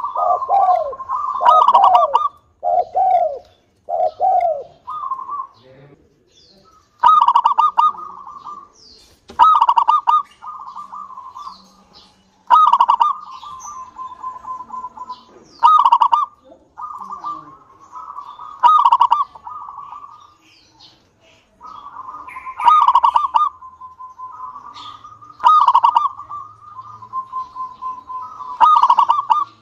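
Zebra dove (local perkutut) cooing. It starts with a quick run of falling coos, then repeats its song phrase about every three seconds, each phrase opening with a sharp burst of notes and running on into a rapid trilling coo.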